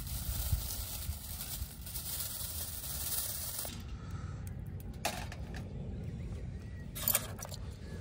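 Egg and garlic chives sizzling in a pan over a wood fire, a steady hiss that stops abruptly a little under four seconds in. Two light knocks follow later.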